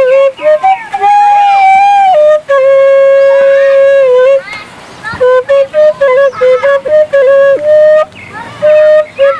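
Bamboo flute (suling) playing a slow solo melody: long held notes with quick ornamented turns between them, pausing briefly about halfway through and again near the end.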